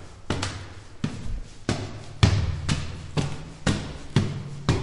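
Footsteps climbing stairs at an even pace, about two steps a second, each step a sharp thud with a brief echo.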